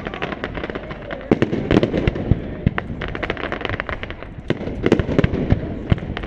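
Fireworks display going off: rapid, irregular bangs and pops in dense bunches, some louder ones with a low boom after them.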